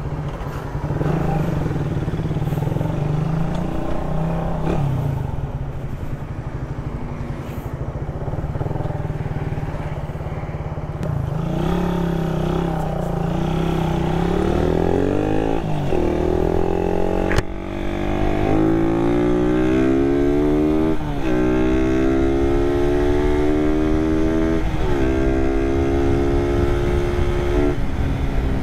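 Suzuki Raider 150 motorcycle engine under way, first running steadily, then accelerating through the gears from about halfway. Its pitch climbs and drops back at each upshift, several times, with wind rush on the microphone and one sharp click partway through.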